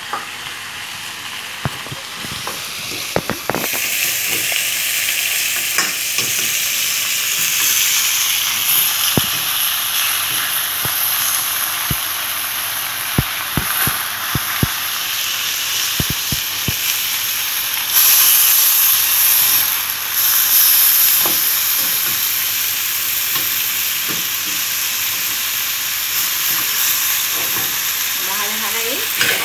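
Pieces of pork rib sizzling as they brown in a nonstick skillet, with clicks and scrapes of a plastic spatula turning them. The sizzle grows louder a few seconds in.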